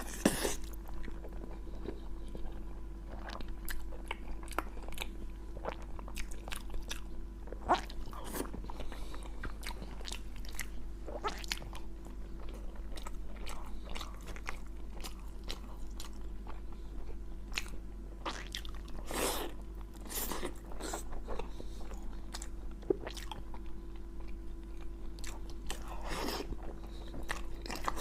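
A person chewing and biting pig head meat close to the microphone: irregular wet mouth sounds with scattered crunches, over a steady low hum.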